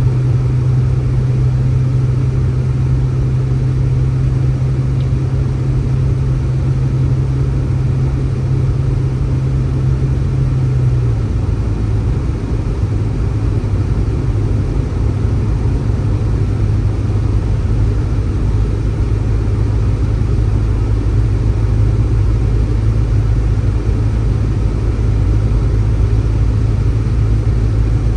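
A steady engine hum over a low rumble, dropping slightly in pitch about eleven seconds in.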